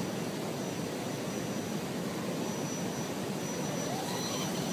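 Steady rushing of flowing river water, with a faint, thin, high steady whine over it.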